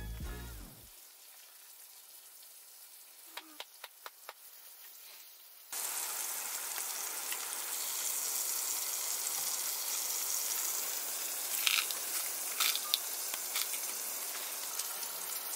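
Pork belly sizzling in a hot pan. It is faint at first with a few sharp pops, then suddenly much louder about six seconds in, a steady hiss with occasional crackles.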